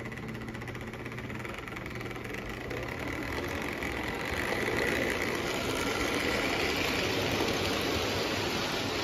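Lionel prewar 226E O gauge steam locomotive and its freight cars running on three-rail tinplate track. The motor and gears whir and the wheels rumble over the rails, growing louder as the train comes close about halfway through. It is running smoothly.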